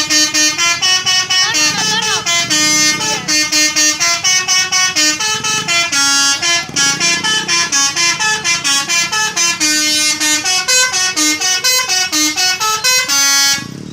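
Telolet horn, a multi-trumpet electric air horn, playing a quick tune of short notes that step up and down several times a second. It ends on a longer held note.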